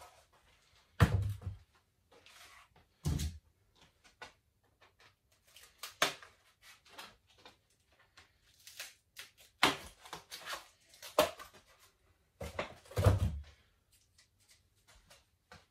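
Parts and packaging being unpacked from a cardboard box: irregular knocks, clatter and rustling, with heavier thumps about a second in, about three seconds in and near the end.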